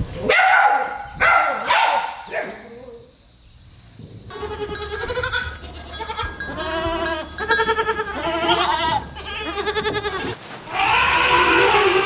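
Puppies yapping a few times, then goats bleating over and over in quavering calls. About eleven seconds in, a louder, harsher elephant call starts.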